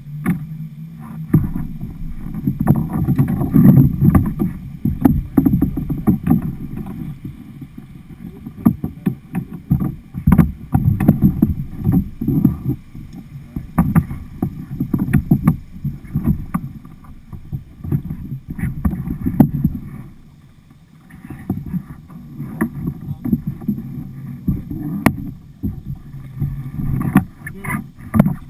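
Fast, flooded river water rushing and splashing around a kayak, heard as a heavy, uneven rumble with scattered knocks. It eases briefly about two-thirds of the way through.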